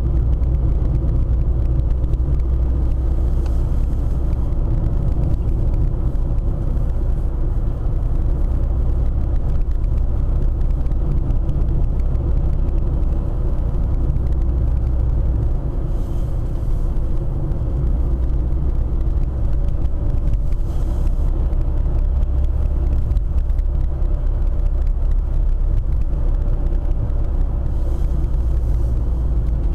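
Steady low rumble of a Mercedes-Benz car driving along, engine and tyre noise heard from inside the cabin.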